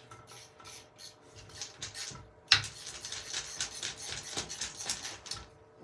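Replacement Kwikset door latch being set into the door edge and its first screw being driven with a screwdriver: small metal clicks and scraping, a sharp click about two and a half seconds in, then a quick run of ticking.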